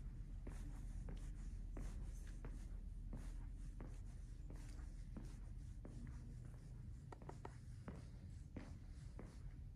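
Soft footsteps at an easy walking pace, about one and a half steps a second, over a low steady hum.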